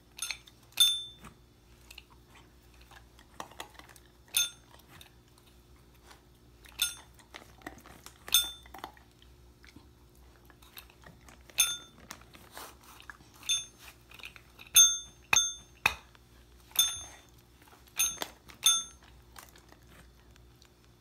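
A small tap bell pressed repeatedly by a golden retriever puppy's paw, giving about ten short dings spread unevenly. Between the rings the puppy crunches and chews reward treats.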